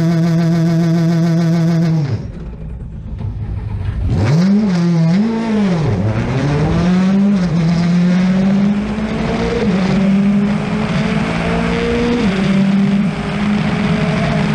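Rally car engine held at steady revs, cut off about two seconds in, blipped twice, then pulling under load with the revs slowly climbing and dropping at a gear change near the end, over a hiss of tyre and road noise.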